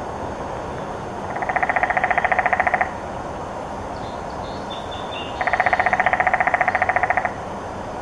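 Downy woodpecker drumming on a broken, splintered treetop: two rapid, even rolls of strikes, each lasting about one and a half to two seconds, with a short gap between them. A few faint high chirps fall in the gap, over a steady background rush.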